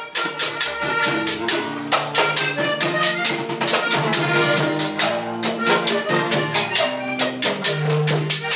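Live vallenato band playing an instrumental passage: button accordion carrying the melody over electric bass guitar and a steady percussion beat.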